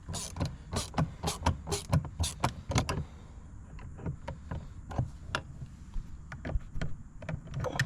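Hand ratchet with a T15 Torx bit clicking in quick runs of sharp clicks, about four or five a second, as door-panel screws are backed out; the clicks thin out after about three seconds.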